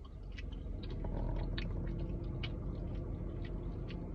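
A person chewing food close to the microphone: irregular wet clicks and smacks a few times a second, over a steady low hum.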